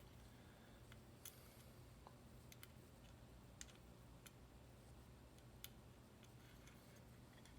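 Faint, scattered small clicks and ticks of a small screwdriver and parts being handled during reassembly, a few seconds apart, over a low steady hum.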